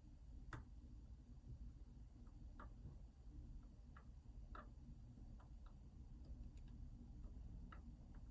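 Faint, irregular small clicks and ticks of a hook pick probing the pins of an ASSA Twin 6000 lock under light tension.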